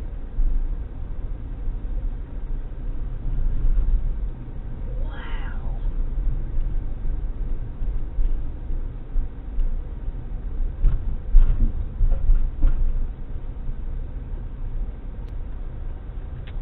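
Steady low rumble of a vehicle driving. About five seconds in comes one short high cry that wavers up and down, and a few light clicks follow around eleven to thirteen seconds.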